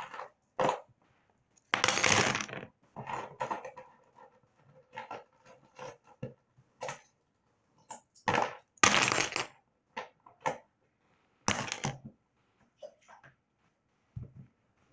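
Wet coins being taken out of a LEGO boat's hold by hand and dropped, clinking and rattling in irregular bursts, with a few longer, louder rattles.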